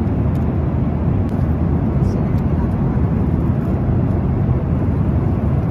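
Steady low rumble of an airliner cabin in flight: jet engine and airflow noise heard from inside the cabin.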